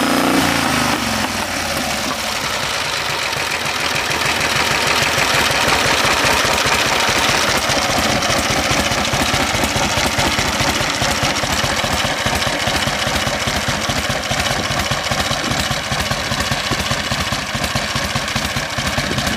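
1947 Harley-Davidson Knucklehead overhead-valve V-twin idling with a steady, even pulse, settling back down from a rev in the first half-second.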